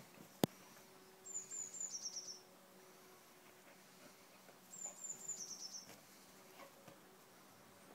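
A small songbird repeating a short, high, thin phrase three times, a few quick notes that step down in pitch, about every three and a half seconds. A single sharp tap about half a second in is the loudest sound.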